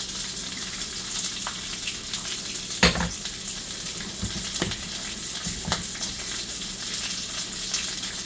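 Asparagus sizzling in olive oil in a cast iron skillet, a steady hiss with scattered pops and crackles, and a sharp knock about three seconds in followed by a few lighter knocks, like a utensil against the pan.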